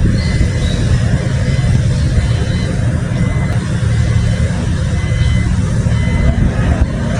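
Loud, steady low engine rumble of heavy construction machinery and passing road traffic.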